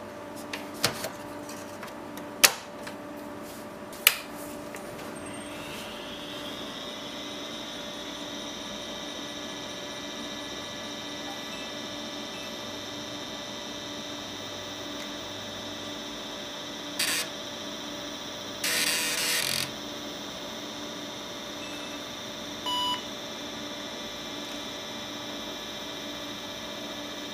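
IBM PS/2 Model 50 computer powering up: a few sharp clicks, then a whine rises and settles into a steady machine hum. Later come a click and a rasp of about a second of drive activity, then a single short power-on self-test beep. The spare floppy drive fails to read the boot disk, so the machine falls back to the hard drive.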